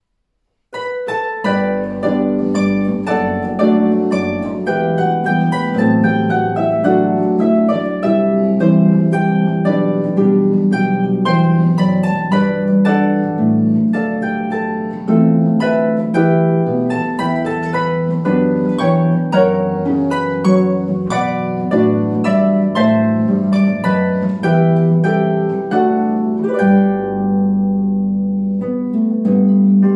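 Solo concert pedal harp playing: a steady stream of plucked notes and chords that begins about a second in. Near the end the high notes fall away and low notes are left ringing.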